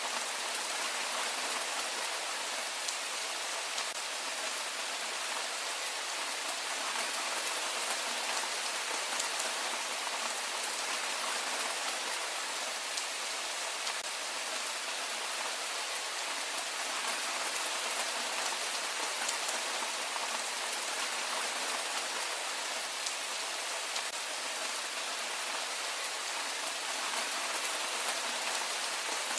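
Heavy rain falling steadily, an even wash of drops with no let-up.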